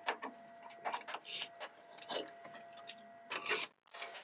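RAM sticks being pressed into the memory slots of a Dell OptiPlex 755 motherboard: a series of irregular plastic clicks and knocks. The loudest cluster comes about three and a half seconds in, then the sound drops out abruptly near the end.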